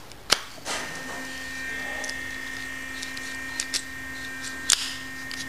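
Metal clicks and clinks of rocker-shaft parts being handled and fitted onto the shaft, the sharpest one about a third of a second in, a few more near the end. From about a second in, a steady machine hum with a high whine runs underneath.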